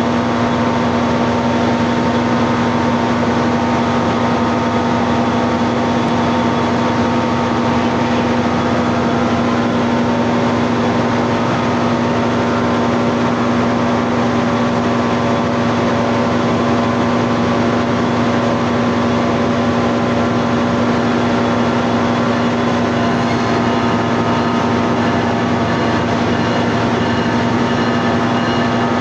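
Steady mechanical drone with a strong low hum and several fainter higher hum tones, unchanging in level and pitch throughout.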